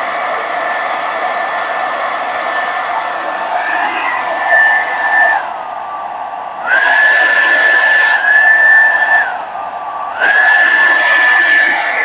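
Gabor GHD N700A 700-watt hair dryer running with a steady airflow rush and motor whine. Twice, about five and nine seconds in, its whine drops and it goes quieter for a second or so as it is switched to a lower setting, then it comes back up to full speed. The dryer is working again after a broken wire in its power cord was rejoined.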